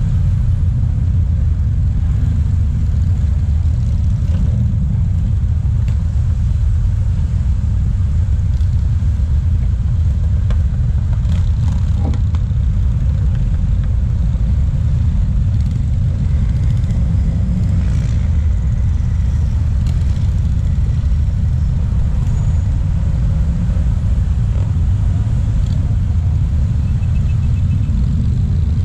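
Steady low rumble of heavy road traffic: a long column of motorcycles riding past together with cars and trucks on the avenue.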